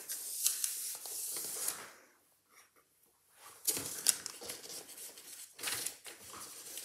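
Paper tissue and an inky rag rubbing and wiping over a textured collagraph plate: scratchy wiping strokes that stop for about a second and a half after two seconds, then start again.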